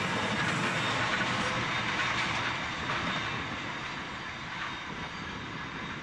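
Long freight train rolling away into the distance, its steady wheel-and-rail rumble slowly fading.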